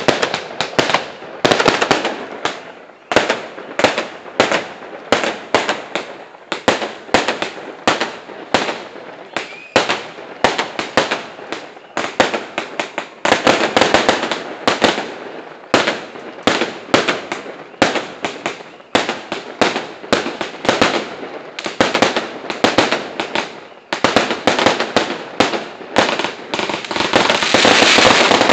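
Fireworks going off at close range: a long, irregular string of sharp bangs, roughly two a second, with crackling between them. Near the end the bangs give way to a louder, continuous rush of crackle and hiss.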